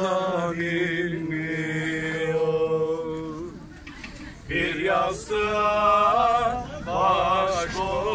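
A man singing a Turkish folk song unaccompanied, holding long wavering notes. He breaks off about three and a half seconds in and takes the line up again a second later. A low steady hum sits beneath the voice in the first half.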